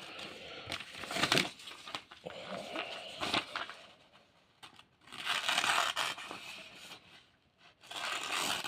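Freshly sharpened knife blade making slicing cuts in a sharpness test, heard as several scraping, tearing strokes, the longest about five seconds in.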